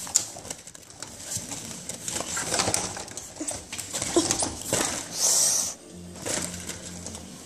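Handling noise from a phone: rustling, scraping and small knocks as the microphone rubs against hair and clothing, with a brief louder hiss a little past the middle.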